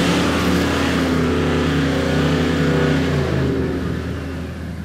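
A diesel 4WD's engine revs hard under load as it tows a trailer through a muddy channel crossing, with water and mud spraying and hissing off the tyres. The engine and spray ease off near the end.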